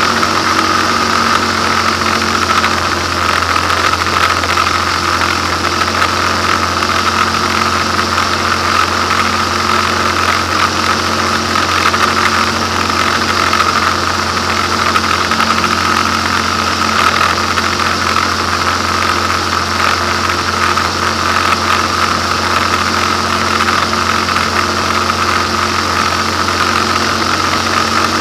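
Single-engine light aircraft's piston engine and propeller running steadily in level flight, heard from inside the cockpit. It is an even drone with a strong steady higher hum, with no change in pitch.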